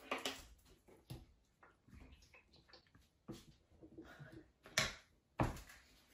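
Scissors snipping and a plastic chocolate-bar wrapper crinkling, heard as scattered clicks and rustles, with two louder sharp knocks near the end as the scissors are put down on the wooden table.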